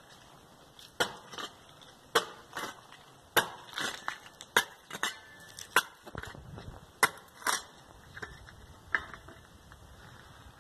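A hand digging tool striking packed dirt: about a dozen sharp chopping blows, often in quick pairs, roughly one every half second to second.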